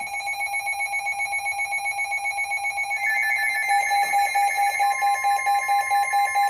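Emergency Alert System alert tones from a radio: steady electronic tones with an even pulsing beat. A higher tone joins about three seconds in and another about two seconds later. They announce a flood warning.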